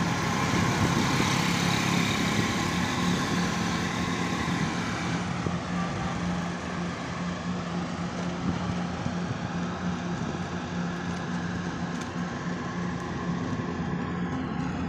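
A car on the move: a steady engine hum under a broad rush of road and traffic noise, whose hiss eases after about five seconds.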